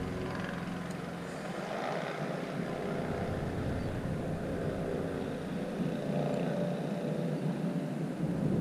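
A steady, faint drone of a distant motor over outdoor background noise.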